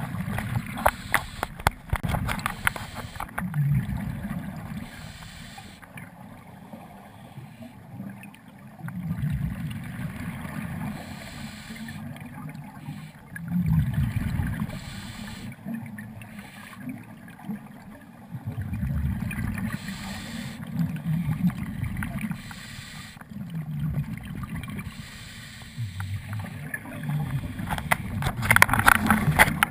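Scuba divers' exhaled regulator bubbles recorded underwater: a low bubbling gush that comes back every five seconds or so with each breath. There is a burst of crackling clicks in the first few seconds and again near the end.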